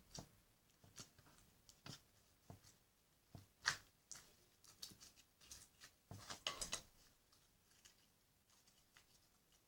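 Clear slime being squished and handled, giving soft, irregular clicks and small pops, busiest about two thirds of the way through and thinning out near the end.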